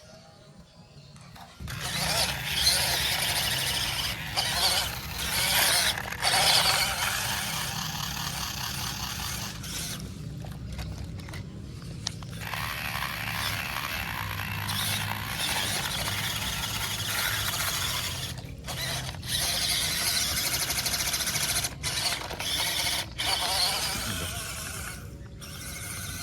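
The electric motor and gearbox of a 1/16 WPL C24 RC crawler whine and squeal as it drives. It starts about a second and a half in and cuts out briefly several times as the throttle is let off, most clearly for a couple of seconds around the middle.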